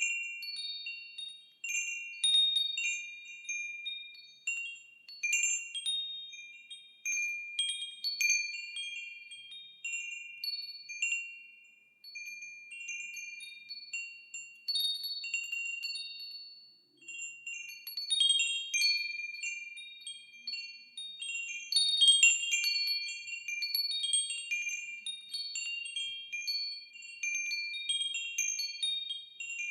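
Wind chimes ringing, their high tones struck in irregular clusters and left to ring on and overlap. The chiming thins out twice, around the middle, and is busiest about two-thirds of the way through.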